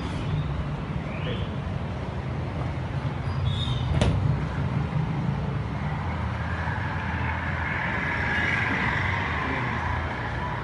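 Road traffic: a motor vehicle engine running steadily, with a single sharp knock about four seconds in and a rushing noise that swells and fades about seven to nine seconds in.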